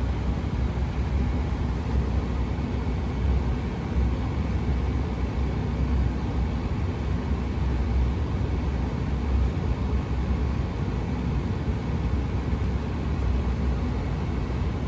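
American Standard gas furnace running steadily with its burners lit and blower on, a steady low rumble, while its combustion is being analysed.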